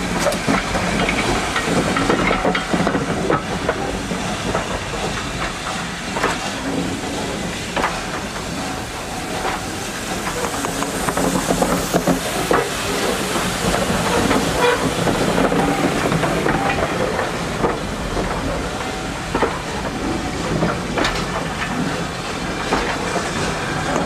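USATC S160 2-8-0 steam locomotive hauling a train of coaches past, steam hissing, followed by the clatter of the carriage wheels over the rail joints as the coaches roll by.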